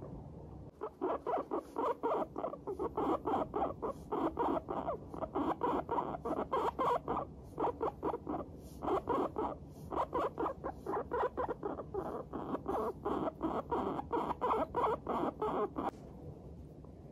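Guinea pig chutting: a quick run of short 'pu-pu-pu' notes, several a second, broken by two brief pauses midway and stopping shortly before the end. It is the contented call a guinea pig makes while pottering about in a good mood.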